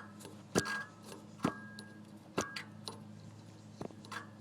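Compressor wheel of a 2008 Mitsubishi Lancer Evolution's stock turbocharger turned by hand, its blades clicking against the compressor housing about once a second, some clicks with a brief metallic ring. The contact comes from excessive turbo shaft play. A faint steady hum runs underneath.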